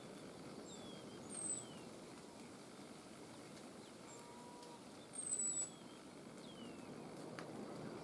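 Wild birds calling: a few short, high, thin whistles and several brief notes that slide down in pitch, over a faint, steady background hiss.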